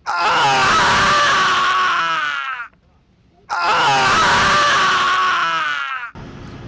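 A person's voice loudly imitating a RED Komodo cinema camera's cooling fan: two drawn-out, scream-like vocal tones of about two and a half seconds each, each held steady and then sliding down in pitch at the end.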